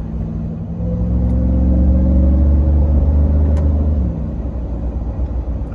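Supercharged 6.2-litre V8 of a 2021 Ram 1500 TRX accelerating, heard from inside the cabin: a deep engine note that grows louder and climbs slowly in pitch from about a second in, then falls away about four seconds in.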